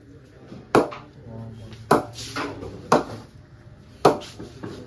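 Cricket ball bounced off the face of an SS willow cricket bat four times, about once a second: sharp wooden knocks, a test of the bat's ping.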